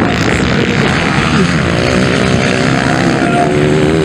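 Motocross bike engines from a 230 cc class race running hard, their pitch rising and falling as the throttle is opened and closed. From about a second and a half in, one bike's engine stands out clearly, revving up and down.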